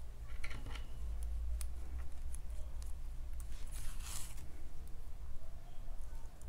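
Acrylic yarn being drawn through crochet fabric with a darning needle as crocheted pieces are sewn together: soft rustling swishes, the clearest about half a second in and about four seconds in, with faint ticks over a steady low hum.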